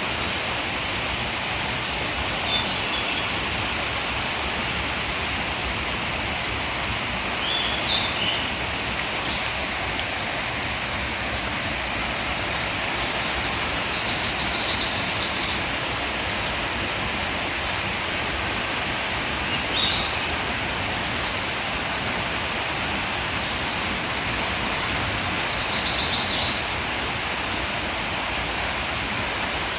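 Steady rush of a mountain stream, with a bird calling over it: a few short chirps and, twice, a longer high call that falls slightly in pitch.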